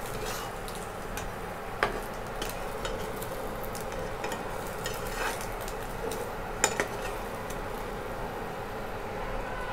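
Egg omelette sizzling steadily in butter in a nonstick frying pan. A metal spatula scrapes and taps against the pan, with sharp clicks just under two seconds in and again at about six and a half seconds.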